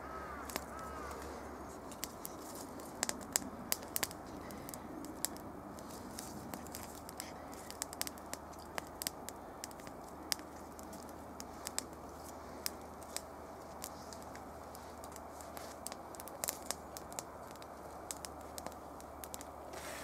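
Small campfire of wood shavings and thin sticks crackling as it catches, with sharp irregular pops a few times a second.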